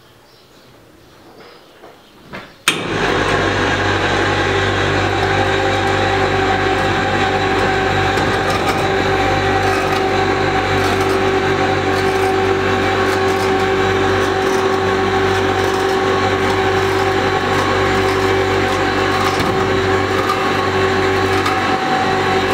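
A motor-driven machine switched on with a click about three seconds in, then running steadily at a constant pitch.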